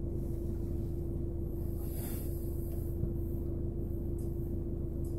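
A single sustained tone held steady over a low rumbling haze: the opening drone of the backing music, before any melody comes in.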